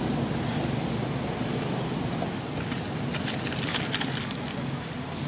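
Steady low hum of a motor running, like a vehicle engine idling, with a spell of crackly dry-leaf rustling in the middle.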